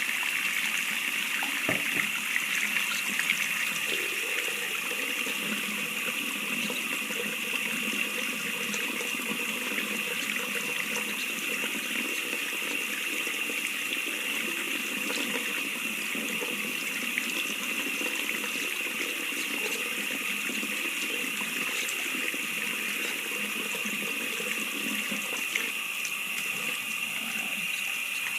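Faucet water running steadily into a sink, splashing over bundles of human hair being washed under it.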